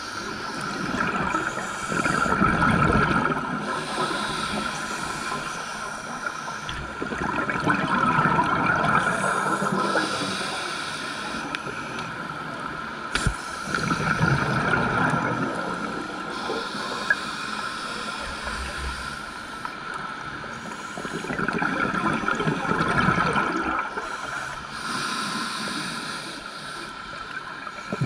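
Scuba diver breathing through a regulator underwater: four bubbling exhales, one every six to eight seconds, over a steady high hum.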